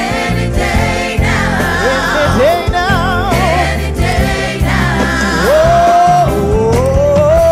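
Gospel choir singing with a live band, a drum kit keeping the beat under steady low bass notes. A lead voice holds a long note with vibrato in the second half.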